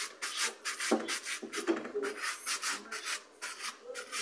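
Socks being scrubbed by hand during washing: fabric rubbed in quick rhythmic strokes, about three to four a second.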